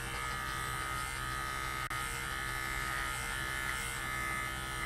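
Electric pet grooming clippers running steadily through matted dog fur. The hum wavers slightly in pitch as the blade meets the mats.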